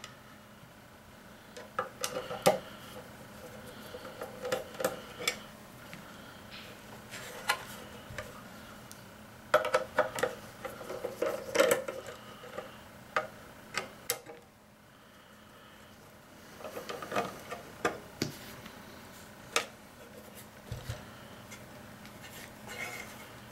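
Screwdriver backing out the small screws of an MFJ-9420 transceiver's sheet-metal case, with scattered light clicks and taps of the tool, screws and case. The clicks come in clusters a couple of seconds apart.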